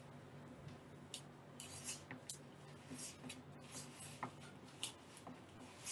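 Faint scratchy rustling and light ticks of hands working a crumbly, sandy cookie dough in a bowl, over a low steady hum.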